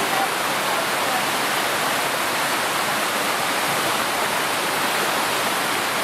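Narrow waterfall falling into a rocky pool: a steady rush of falling water.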